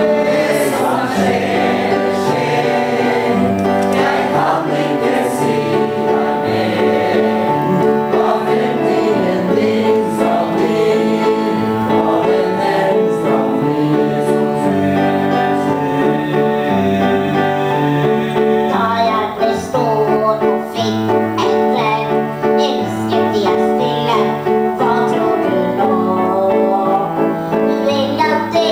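Women singing a Norwegian song to upright piano accompaniment, the piano keeping a steady bass pattern under the melody.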